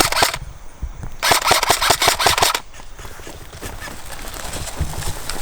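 Airsoft rifle firing on full auto in two rapid bursts: a short one right at the start and a longer one about a second in, lasting about a second and a half.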